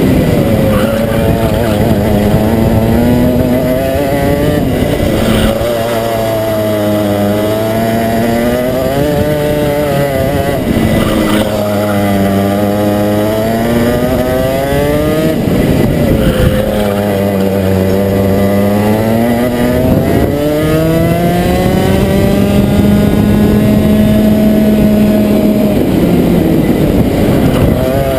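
Rotax Max 125 cc two-stroke kart engine at racing speed, heard from on board. The pitch climbs under throttle and drops off at each corner, about five times, with the revs held high near the end.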